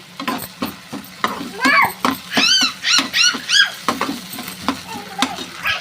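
A young child's high-pitched voice: a quick run of short squeals that rise and fall, about three a second, loudest in the middle of the stretch, over a steady low kitchen hum.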